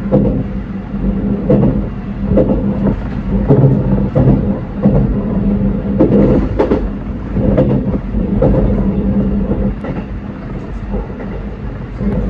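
Running noise heard aboard a JR Central 313 series electric train: a steady low hum with irregular knocks and rattles from the wheels on the track.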